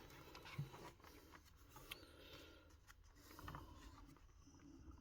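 Near silence: room tone with a few faint soft ticks.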